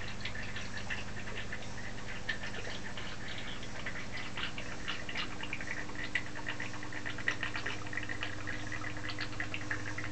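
Coolant circulation system running: a steady low electrical hum from the garden pond fountain pump, with an irregular light patter of coolant trickling over it.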